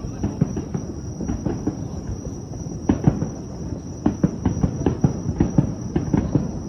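Fireworks bursting and crackling in quick, irregular pops and thumps over a low rumble, with a steady high tone underneath.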